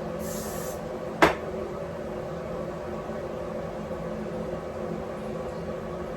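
Steady mechanical hum with a few even tones underneath, and a single sharp click about a second in.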